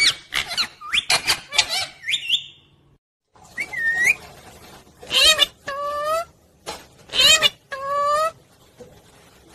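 Pet parrot chirping and squawking. A quick run of calls is followed by a brief break about three seconds in, then several longer, bending calls.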